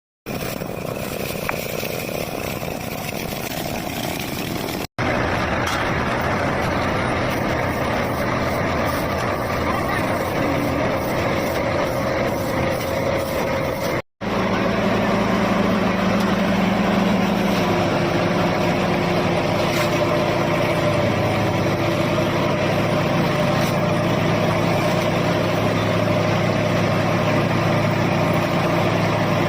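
Road roller engine running steadily, broken by two brief silent cuts about five and fourteen seconds in; a few seconds after the second cut the engine note drops slightly and holds.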